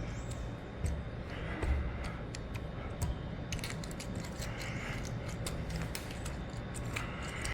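Irregular small plastic clicks and rattles of mechanical keyboard parts being handled, with a few short soft scraping sounds.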